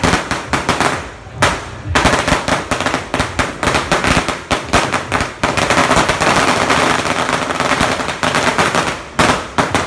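Strings of firecrackers going off in a rapid, dense run of sharp bangs, with a short lull just after a second in, a thick unbroken crackle through the middle, and the last few bangs stopping just before the end.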